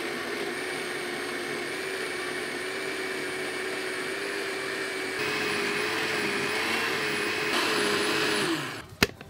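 International-brand electric jug blender running steadily as it purées corn kernels into a smooth yellow batter, its motor whine rising a little in two steps. Near the end the motor is switched off and winds down with a falling whine, followed by a sharp click.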